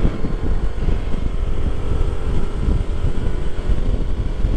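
Wind buffeting the microphone with a heavy rumble, over the steady drone of a Honda PCX125 scooter's single-cylinder engine at cruising speed.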